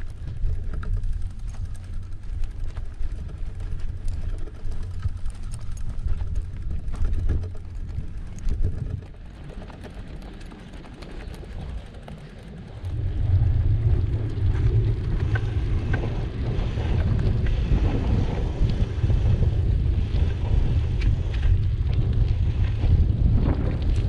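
Wind buffeting the microphone of a bike-mounted camera, a low rumbling noise with the rolling of the bicycle's tyres on pavement under it. It eases for a few seconds just before the middle and picks up again about halfway through.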